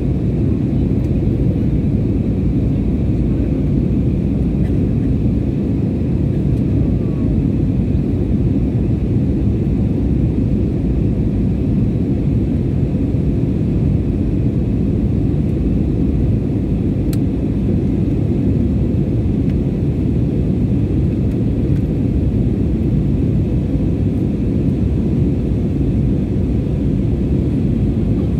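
Jet airliner cabin noise in flight: a steady, even rumble of the engines and rushing air.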